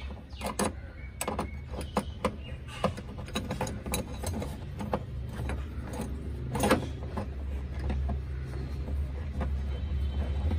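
A screwdriver driving a screw through a metal mounting bracket into a car's rear side panel: irregular small metal clicks and scrapes as the screw turns and the bracket shifts, over a steady low hum that grows louder near the end.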